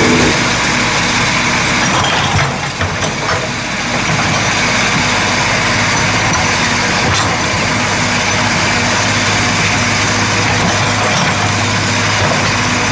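Old JCB 814 tracked excavator's diesel engine running steadily, with a few short knocks about two to three seconds in.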